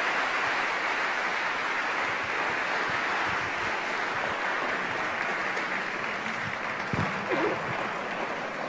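An audience of a couple of hundred students applauding a speaker at the end of a talk, steady and then slowly fading. A brief thump comes near the end.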